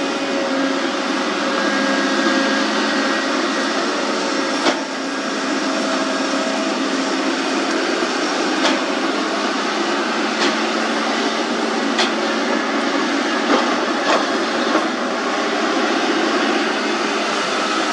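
Hydraulic excavators working, the nearer a Kobelco SK200 digging and swinging a bucket of wet mud: a steady diesel engine and hydraulic drone, with a few sharp knocks from the digging gear, most of them in the second half.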